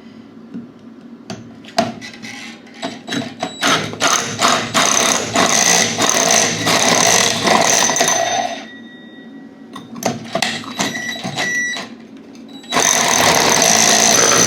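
A handheld power tool cutting into a plastic pipe set in the floor, running with a steady whine and scraping in two long runs, from about four to eight and a half seconds in and again near the end, with knocks and clicks between them.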